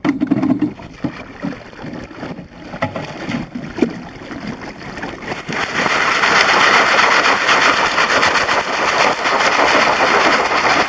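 Creek water rushing and splashing right at the microphone, becoming loud and steady about halfway through, with scattered knocks of stones against a bucket of gravel before that.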